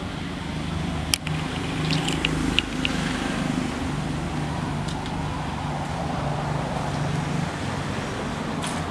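Steady low hum of motor traffic, with a few sharp clicks between about one and three seconds in.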